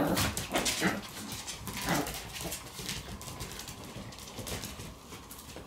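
Two-month-old Shiba Inu puppies play-fighting, with short yips and whimpers and scuffling on the floor. It is busiest in the first two seconds, then settles to a few scattered yips.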